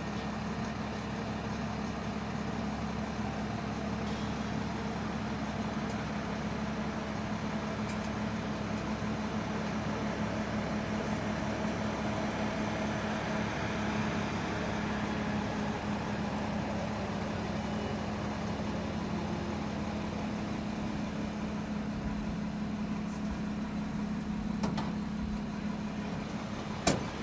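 An engine idling steadily, with a sharp click near the end.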